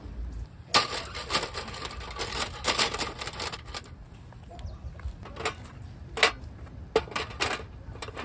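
A quick run of clicking and clattering from small hard objects being handled, lasting about three seconds, then a few separate clicks.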